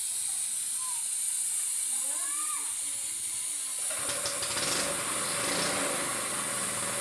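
Steady hiss, then about four seconds in a 2011 Kia Picanto's engine comes in and runs steadily, with a fixed tone over the hiss.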